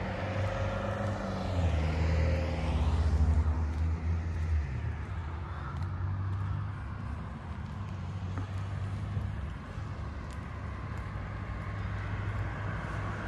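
Street traffic: a car passes by a couple of seconds in, its tyre and engine noise swelling and fading, over a steady low traffic hum.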